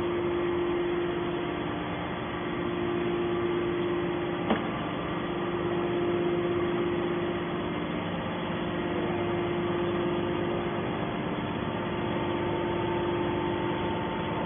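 Scrap baler's engine and hydraulic power unit running steadily with a constant hum, and a single sharp click about four and a half seconds in.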